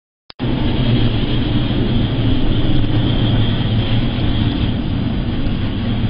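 Steady low rumble with a rushing hiss aboard a ship ploughing through heavy seas: the vessel's drone mixed with wind and sea noise. It starts suddenly just after a short click.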